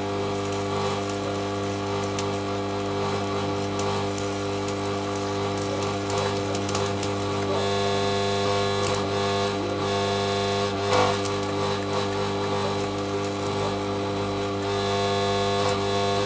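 Stick arc welding with a small Draper MMA inverter welder: the electrode's arc crackles and sputters steadily over a constant electrical hum, with a few louder pops.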